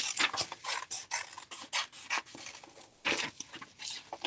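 Scissors cutting around the outside edge of a paper cutout: a quick run of short, crisp snips that thins out about two seconds in, then another short run about three seconds in.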